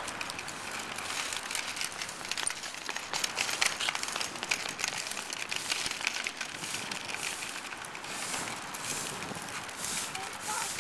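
Small plastic wheels of a toy umbrella stroller rolling over brick pavers as it is pushed along, an irregular clatter of small clicks and rattles.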